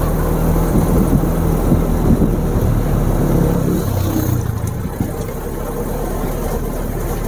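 Open-top jeep's engine running as it drives along a rough mountain road, with a steady low rumble from the engine and tyres, heard from inside the open jeep.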